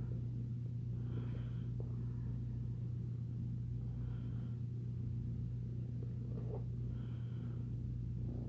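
Kitten purring steadily as it is petted, a continuous low pulsing rumble.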